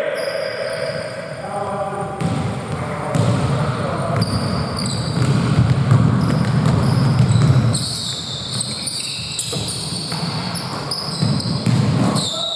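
Basketball game on an indoor court: the ball bouncing, short high squeaks from sneakers on the floor, and players calling out.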